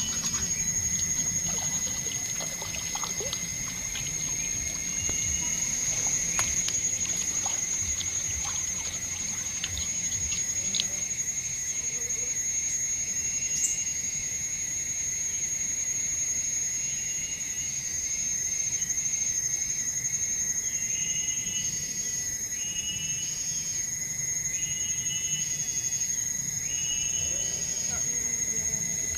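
Jungle riverside ambience: a steady high-pitched insect drone with short repeated bird calls in the second half, over the trickle of a stream.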